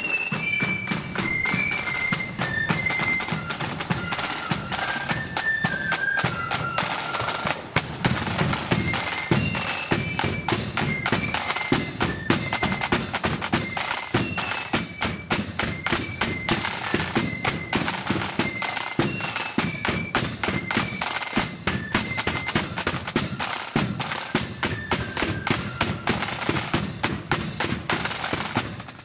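Marching flute band playing on parade: a shrill flute melody over rapid, dense side-drum beating and the thud of a bass drum.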